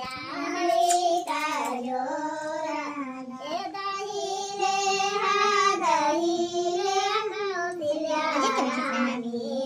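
Women singing a traditional Indian wedding folk song (geet), unaccompanied, in long held notes that slide from pitch to pitch.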